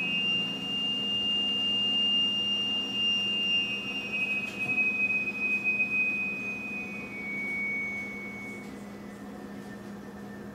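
Brand-new upright freezer whistling after its door is closed: one long high whistle that rises a little, then slowly slides down in pitch and fades, likened to a bull elk's bugle, over a steady low hum. The owner wonders if it might be the altitude.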